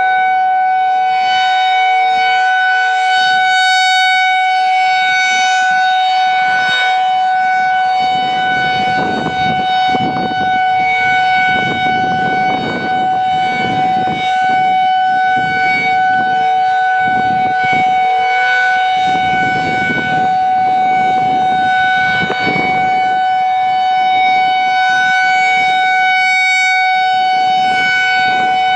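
Federal Signal 2001-SRNB outdoor warning siren sounding a loud, steady tone at one unchanging pitch during its monthly test.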